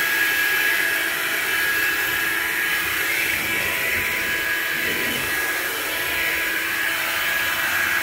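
Hoover Linx cordless stick vacuum running steadily as it is pushed over hard floor: a constant high motor whine over a rush of air.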